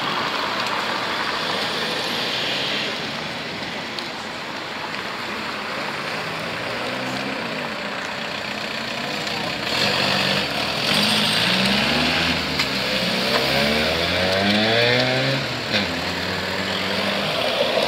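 Car engine revving and accelerating away, its pitch climbing in steps from about seven seconds in, over steady street noise.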